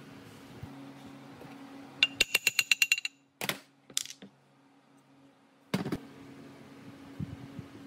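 Hand tool work on metal parts: a quick run of about a dozen ringing metallic clicks, two short scrapes, then a single loud knock, over a steady low hum.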